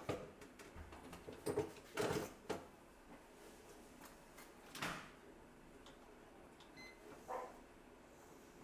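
Plastic knocks and clicks from a home bread maker being handled, its lid and body bumped and shut a few times, with a short faint electronic beep about two-thirds of the way through.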